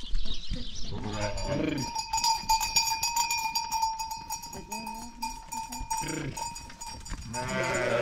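Livestock bells clanging steadily, with sheep bleating a few times: once about a second in, again near six seconds, and once more at the end.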